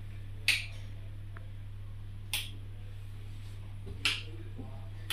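Three sharp clicks about two seconds apart, the switches of a Zeiss OPMI Lumera 300 surgical microscope's control foot panel being pressed, over a steady low hum.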